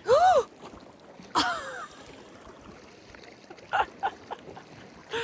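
Two short wordless vocal sounds from a person, the first rising and falling in pitch and the second falling, followed by a few light clicks about two-thirds of the way through.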